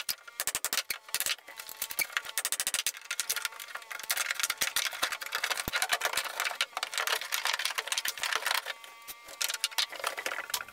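Hammer blows on T1-11 plywood siding and its wood framing, knocking the siding loose from the inside: rapid strings of sharp knocks with a few short breaks.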